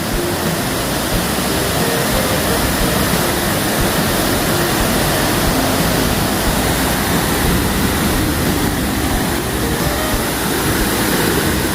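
Bald River Falls: the steady, loud rush of a waterfall heard close by, water pouring and crashing without a break.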